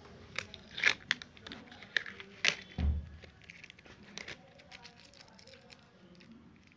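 Handling noise from a laptop's LCD panel and display ribbon cable: a run of sharp plastic clicks and crinkles of tape and film, with a dull bump just under three seconds in, then lighter scattered ticks.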